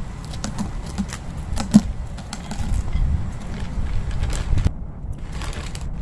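Scattered clicks and crackles as the plastic bag of potting mix is handled, over a low rumble of wind on the microphone.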